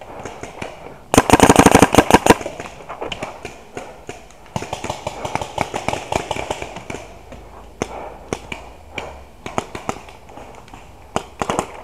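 Proto Rail electropneumatic paintball marker firing a rapid burst of about a dozen shots in just over a second, about a second in. Fainter scattered shots follow, with two more sharp shots near the end.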